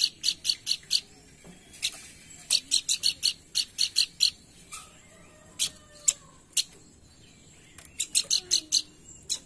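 Pelanduk bukit babbler singing: runs of sharp, rapid high notes, about five or six a second, with single notes between the runs.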